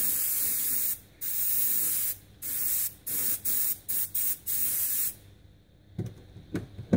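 Paasche H airbrush hissing with compressed air as weathering paint is sprayed on in repeated bursts. There are two longer passes, then several short quick squirts, and the spraying stops about five seconds in. A few light knocks follow near the end.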